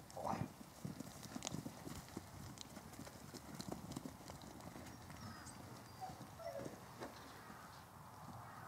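Hooves of a small mob of sheep trotting and shuffling on hard dirt: a run of light, irregular knocks.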